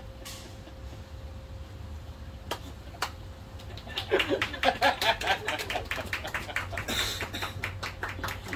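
A few people laughing in quick bursts, starting about halfway through, after a couple of soft knocks.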